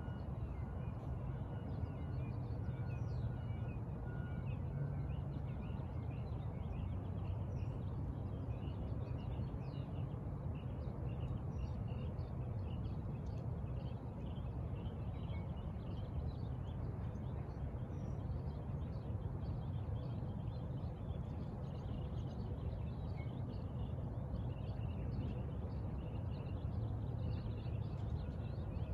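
Small birds chirping over a steady low background rumble.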